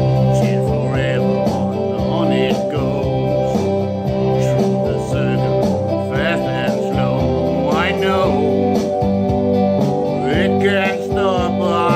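Guitar-led country-rock song playing at a steady level, with short sung or lead-guitar phrases coming and going over the backing.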